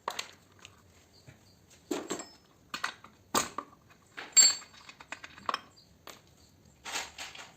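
Scattered metallic clinks and knocks of tools and parts being handled during chainsaw repair work, about seven in all at uneven intervals. The loudest, a little past the middle, rings briefly.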